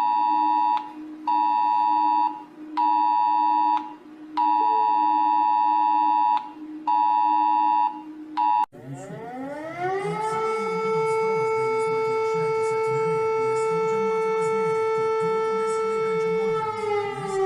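Emergency Alert System alarm tones: a two-tone electronic alarm sounding in on-off blocks of about a second over a low steady hum. Then it cuts to a siren that winds up in pitch over about a second and holds one steady pitch.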